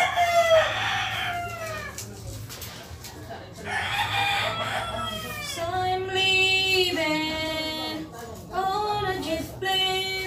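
Roosters crowing: two long crows in the first half, each rising and then falling off, followed by more long held calls.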